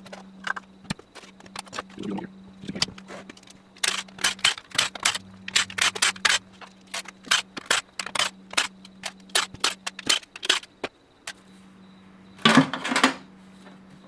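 Hand ratchet clicking in quick runs while loosening the bolts of a 4L80e transmission's oil pan, with a louder metallic clatter near the end.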